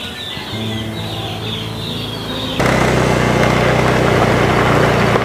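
Motorcycle engine idling, a steady rough hum; a fainter engine hum is heard at first, and about halfway it becomes loud and close.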